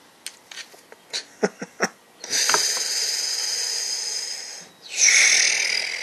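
A screwdriver clicks against a small-engine carburetor several times. Then come two long hissing blasts of pressurized spray into the carburetor body, the second starting about five seconds in and louder.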